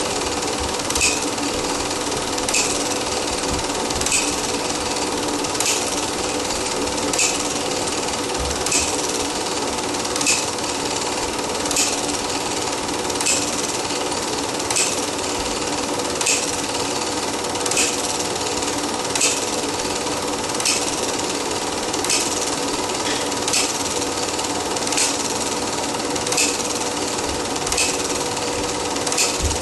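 Cine film projector running: a steady mechanical whirr of the film transport with a faint hum, and a sharp click repeating about every one and a half seconds.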